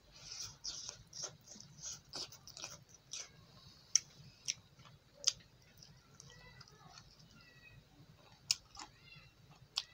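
Close mouth sounds of a man eating rice and meat with his hand: chewing and lip smacking, with sharp clicks every second or so.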